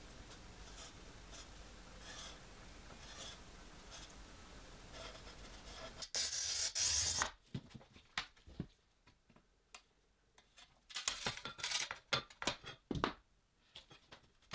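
Sheets of stained glass being handled on a work table: a scrape of about a second as glass slides over the surface about six seconds in, then scattered light clicks and taps as pieces are set down and shifted. A steady faint hiss fills the first six seconds.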